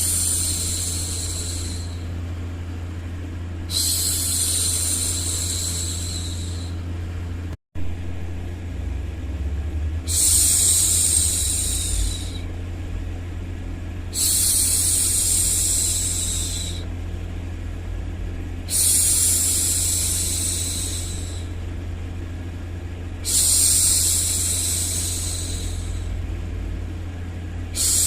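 A woman's voice shushing 'shhh' in long hushes of about two and a half seconds each, repeated every four to five seconds, over a steady low rumble of white noise. The sound cuts out for a moment about seven and a half seconds in.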